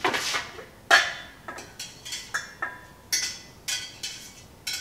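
Metal cooking pot and its lid clinking and knocking as they are handled, about ten sharp metallic clinks with short ringing, the loudest about a second in.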